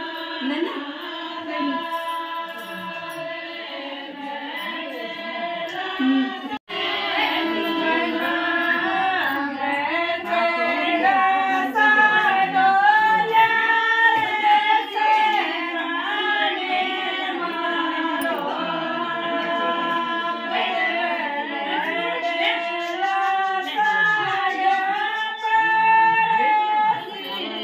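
A group of women singing a traditional wedding folk song together: a melodic chorus of voices with no drumbeat. The singing cuts out briefly about six and a half seconds in.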